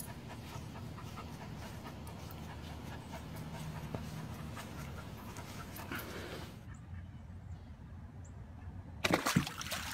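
Young golden retriever panting hard while it tugs on a rope toy. The sound drops away after about six and a half seconds, and a short louder noise comes around nine seconds in.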